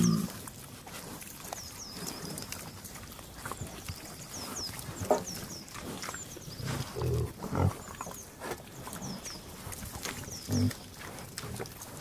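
Pigs grunting and feeding: short, low grunts at irregular intervals, the loudest about five, seven and ten and a half seconds in, over a steady snuffling background.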